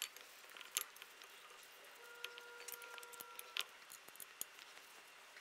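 Faint, scattered metallic clicks and ticks of a hex key and nut being worked while tightening the bolts on the lower plate of an air-suspension helper bag, with a couple of sharper clinks about a second in and about three and a half seconds in.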